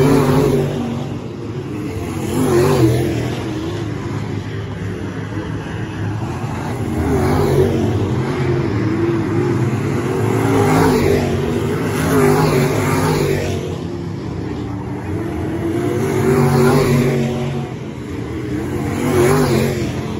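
Dirt-track modified race cars' V8 engines running laps on a clay oval, the sound swelling and fading as cars pass close by, several times, with revving in and out of the turns.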